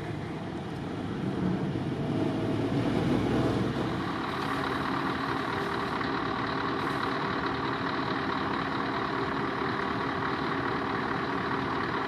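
Heavy truck's diesel engine idling steadily, with a louder low rumble in the first few seconds and a steady hum from about four seconds in.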